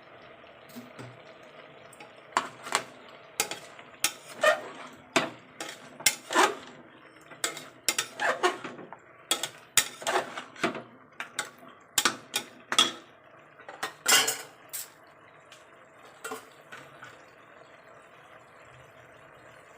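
A cooking spatula stirring chicken in a pressure cooker pot, knocking and scraping against the pot in a run of irregular sharp clinks that stops about fifteen seconds in. A faint steady hum sits underneath.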